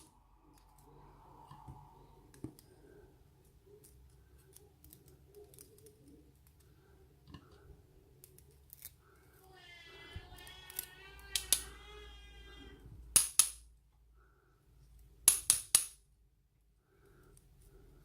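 Sharp metallic clicks and taps of small lock parts and tools as a pin-tumbler lock is taken apart, its pins and springs being removed; the loudest clicks come in the second half. A young girl sings faintly for a few seconds in the middle.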